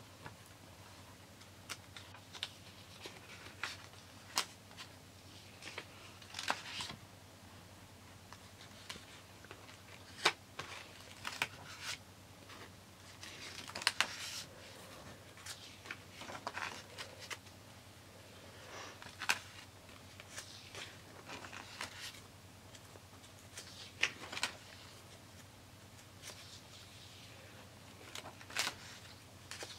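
Paper pages of a spiral-bound notebook being turned and flicked by hand: irregular papery swishes and sharp flaps, one after another.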